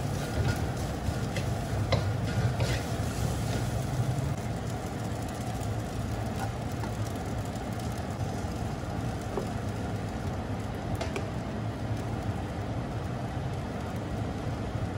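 Bacon and egg fried rice frying in a pan under a steady low hum, with scattered sharp clicks of a spatula against the pan.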